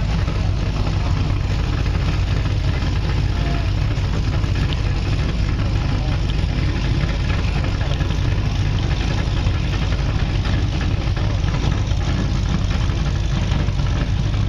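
Tuned 2009 Cadillac CTS-V's supercharged V8 idling with a steady low rumble.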